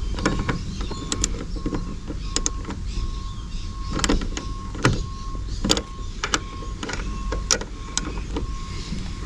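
Irregular clicks and knocks of parts being handled and fitted while mounting a small fan inside a car, over a steady low rumble. A high tone repeats in short dashes throughout.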